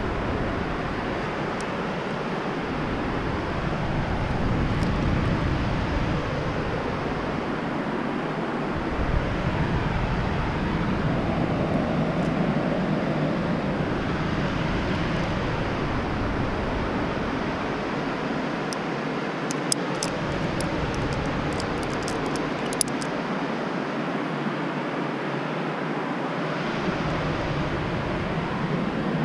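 Wind rushing over the microphone, a steady noise that swells and eases in its low end, with a cluster of small clicks about two thirds of the way through.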